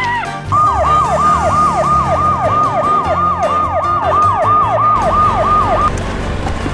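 Electronic police-style siren: a fast wail that repeats about three times a second, starting about half a second in and stopping about six seconds in.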